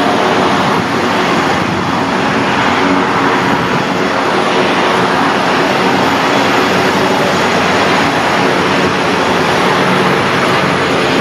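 Steady jet engine noise of an Airbus A321neo airliner taxiing past, heard from behind terminal window glass.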